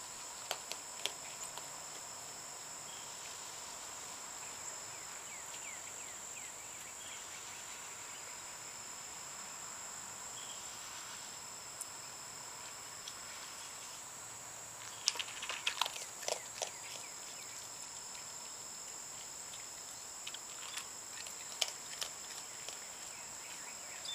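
A steady high-pitched chirring of insects, with bunches of short crunching clicks about two-thirds of the way in and again near the end as a young raccoon chews dry cat kibble from a bowl.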